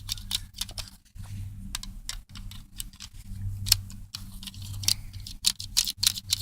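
Small Lego brick pistol being handled: irregular sharp plastic clicks and taps as the pieces are turned and gripped, over a steady low hum.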